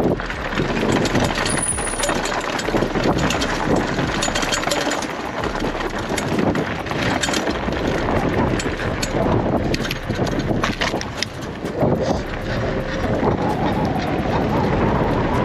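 WaltX Dune 1 fat-tyre bicycle rolling fast downhill on a rough dirt and gravel track: a steady tyre rumble and crunch, with the bike rattling and clicking over stones.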